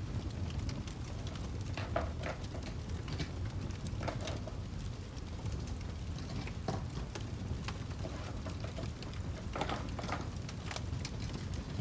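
Wood fire crackling: irregular sharp pops and snaps, some in quick clusters, over a steady low rumble.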